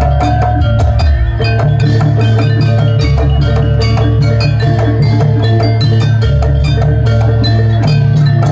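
Jaranan dance accompaniment music: tuned metal percussion struck in a fast, steady pattern with ringing notes, over drums and a heavy bass.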